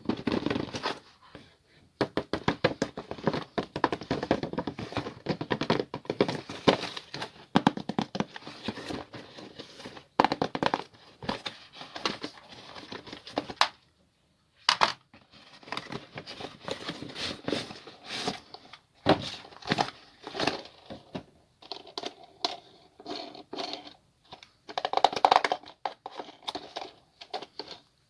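Toy packaging being handled and opened: irregular crinkling, crackling and tearing in spurts, with a few brief pauses.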